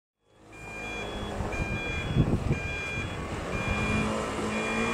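Level crossing warning alarm sounding as the barriers prepare to lower for an approaching train: a two-tone electronic alarm alternating a lower and a higher note, about one cycle a second, fading in at the start. A low rumble runs beneath it, with a couple of heavier low thuds about two seconds in.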